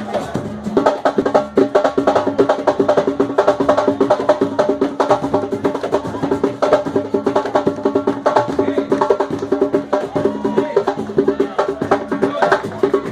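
Batucada: Brazilian samba percussion playing a fast, dense, steady rhythm of quick strokes.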